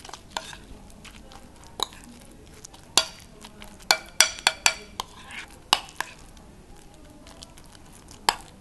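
A metal spoon stirring a thick mash of kabocha squash, yogurt and crushed crackers in a glass bowl. Irregular sharp clinks sound where the spoon strikes the glass, most of them in the middle of the stirring.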